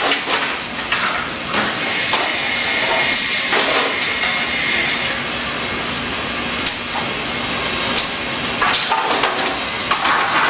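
Cameron Quick Rip rip-saw line running with a steady mechanical din and a held whine, while boards knock and clatter on the chain transfer conveyor. There are a few sharp knocks in the second half.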